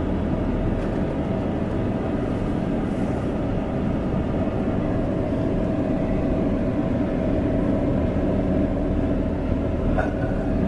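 Car driving along a dirt road: a steady engine and tyre rumble with no change in pace, and a brief click near the end.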